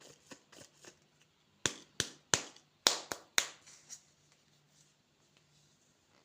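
Candy and its plastic packaging being handled, giving a run of sharp clicks and crinkles. The loudest group comes in the middle, about seven snaps in a little over two seconds, before it goes quiet.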